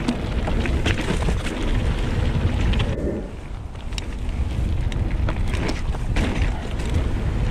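Mountain bike rolling fast over a dirt singletrack trail: tyre noise on dirt with short knocks and rattles from the bike over bumps, and wind rumbling on the microphone.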